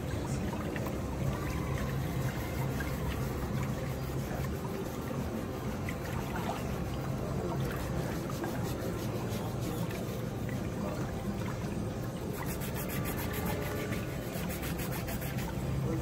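Whirlpool footbath of a pedicure spa tub churning the water steadily, with a low hum. Near the end come light, quick repeated scraping strokes, like a foot file working on the skin.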